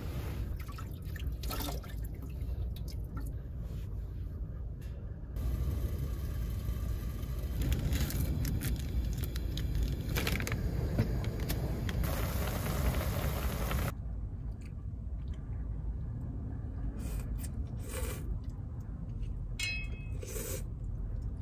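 Water pouring and splashing as a person washes their face by hand, over a low rumble of strong wind on the microphone.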